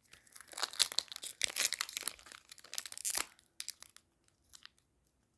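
Foil Pokémon TCG booster pack wrapper crinkling and tearing as it is opened, busy for about three seconds, then a few light rustles.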